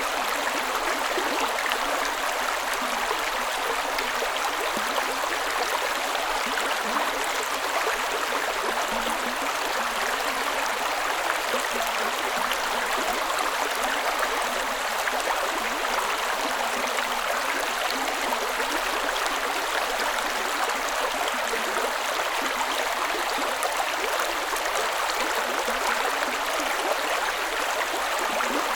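A creek's water running and cascading over rocks, a steady even rush with a light bubbling texture.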